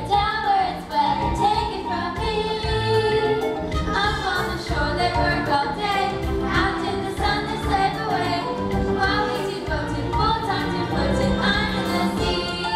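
Musical theatre cast singing an ensemble number together with accompaniment, mostly female voices, heard from the audience in a hall.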